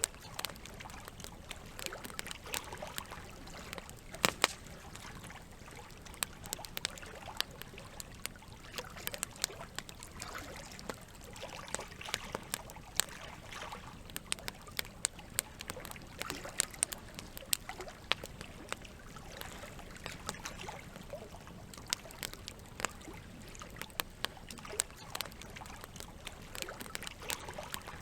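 Campfire crackling with frequent, irregular sharp pops, over a steady wash of running water.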